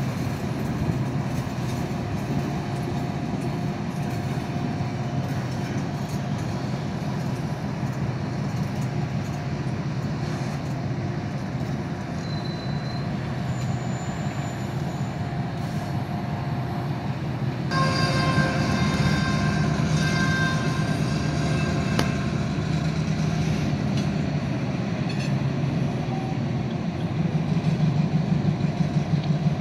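Diesel switcher locomotives running at low speed, a steady engine drone. About two-thirds of the way through, the locomotive horn sounds for about four seconds. Near the end the engine gets louder, with a pulsing beat.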